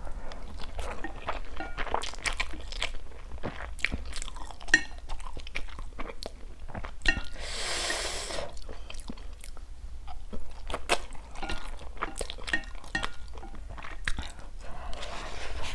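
Close-miked mouth sounds of a person chewing a mouthful of spicy instant noodles, with many small wet clicks and smacks. About halfway through comes a hissing rush lasting about a second.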